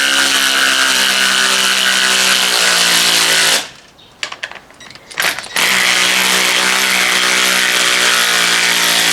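Cordless drill running steadily under load as it drives a bolt through a timber mounting block into a wall anchor. It runs in two long pulls with a short stop between, and its clutch never slips.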